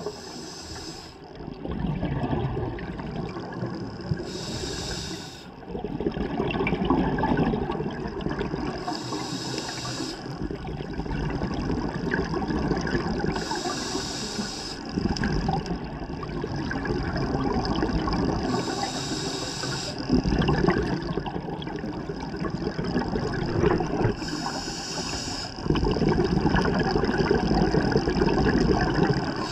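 A scuba diver breathing through a regulator underwater: a short hiss of inhalation about every five seconds, each followed by a longer rumbling burble of exhaled bubbles.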